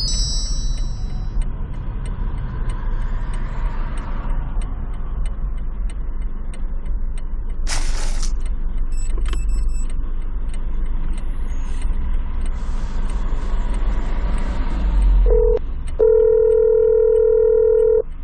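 Steady low rumble inside a BMW 4 Series cabin as the car moves slowly, with a short high chime at the start. Near the end a brief beep, then a steady telephone call tone for about two seconds over the car's speakers as a hands-free call is placed.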